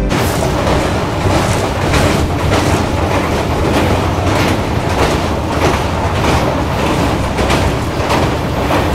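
Train running across a steel truss bridge, heard from an open coach doorway: a loud, steady rumble and rattle of wheels on the rails, with clacks about twice a second.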